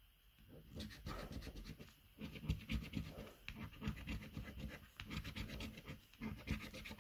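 A coin scratching the coating off a paper lottery scratchcard in quick, irregular strokes. There are short pauses about two seconds in and again near the end.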